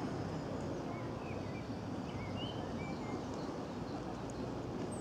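Outdoor background noise, a steady rumble, with a few faint bird chirps between about one and a half and three seconds in.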